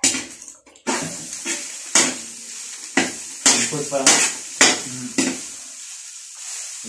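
Food sizzling in a large wok, setting in suddenly just under a second in, while a long-handled metal spatula scrapes and strikes the wok as it is stirred, about once or twice a second.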